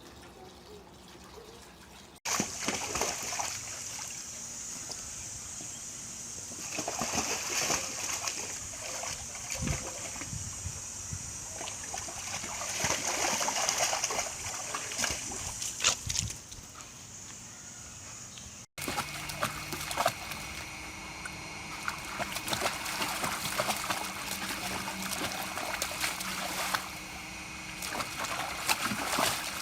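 Water splashing and trickling in a foldable PVC dog pool, in separate clips with abrupt cuts about two seconds in and again about two-thirds of the way through.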